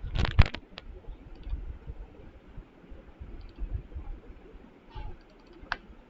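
Computer mouse clicks: a quick run of several clicks just after the start, a single click soon after, and a couple more near the end, over low dull thuds.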